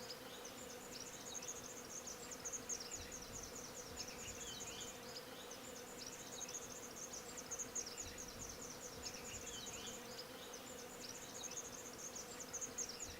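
Faint, dense, rapid high-pitched chirping over a steady low hum.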